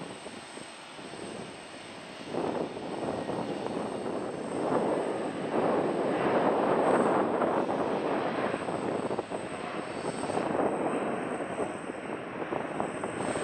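Airliner's engines going by close at hand as a rushing noise: they grow loud about two seconds in, peak in the middle and slowly fade toward the end.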